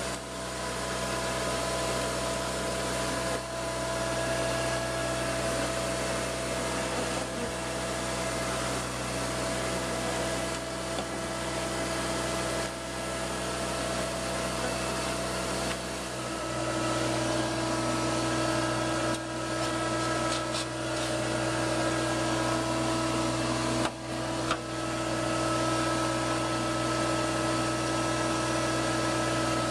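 Bee vacuum running steadily with a constant whine, sucking honeybees off the comb through its hose; its note shifts a little past halfway. The suction is set low, which the beekeeper thinks may not be enough, so as not to kill the bees.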